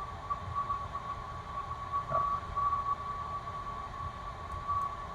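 Steady background noise: a constant high-pitched whine over a low rumble.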